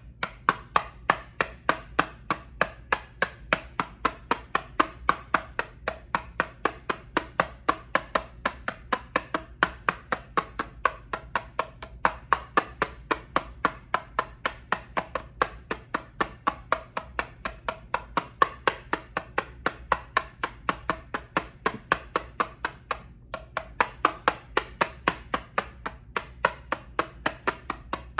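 Rapid, regular tapping on an eyeshadow palette, about four taps a second, with a brief pause about 23 seconds in.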